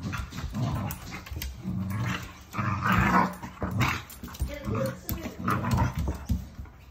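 Staffordshire bull terrier play-growling while wrestling a cat, in a string of short, deep growls.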